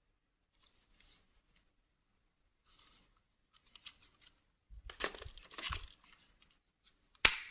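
Handling noise from a plastic two-pole residual-current circuit breaker turned over in the hands: its casing scraping and rubbing against fingers with a few small clicks, busier in the second half, then a loud sharp click near the end.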